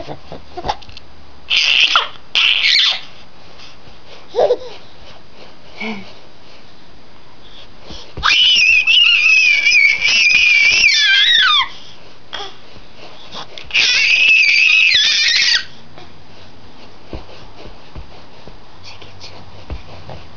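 A baby girl's high-pitched squeals: two short squeals about two seconds in, then a long squeal of about three seconds past the middle that drops in pitch at its end, and another of about two seconds soon after.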